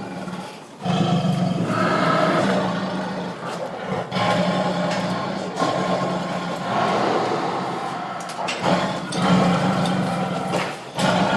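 Tiger roaring and growling: several long, rough roars of a few seconds each, with brief breaks about a second in and again near the end.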